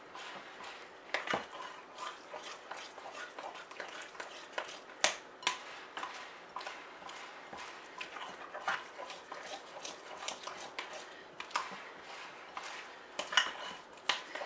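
Thick beer bread batter being stirred by hand in a glass mixing bowl: a utensil scraping and knocking against the glass in irregular strokes, with a few louder knocks.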